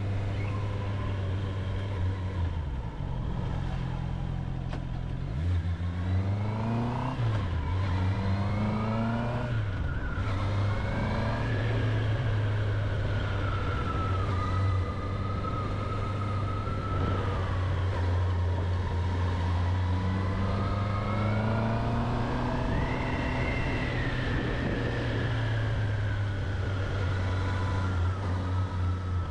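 Honda CB650R's inline-four engine under way, climbing in pitch through several gear changes between about 3 and 10 seconds in, then running at a steady road speed with the pitch slowly rising and falling.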